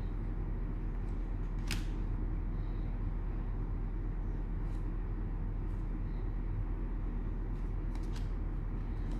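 Steady low hum under a few light clicks and ticks of handling, one sharper click near two seconds in and a couple more near the end.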